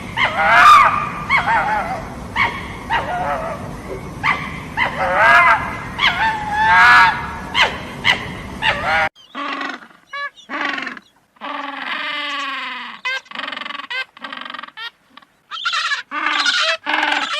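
A series of animal calls and cries, apparently cut together from different recordings. The background noise drops away abruptly about nine seconds in, and after that come one long drawn-out call and a string of short calls.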